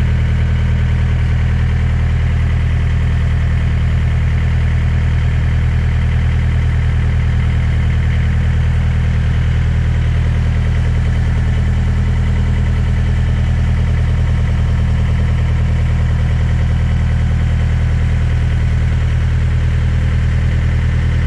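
An engine idling steadily at constant speed with a fast, even throb; the sound stops abruptly at the end.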